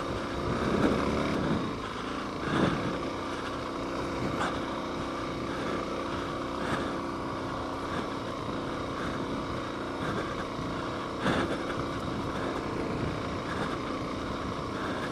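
A Suzuki DR-Z400S dual-sport motorcycle's single-cylinder four-stroke engine running steadily as the bike rolls down a rocky dirt trail. There are a few sharp knocks as it rides over rocks.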